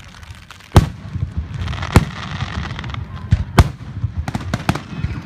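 Aerial fireworks shells bursting in a string of sharp bangs, the loudest about one and two seconds in, then several more in quick succession near the end.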